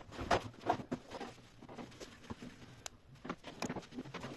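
Light, irregular clicks and taps of a heat-pump tumble dryer's parts being handled and taken off during disassembly, about a dozen small knocks spread unevenly.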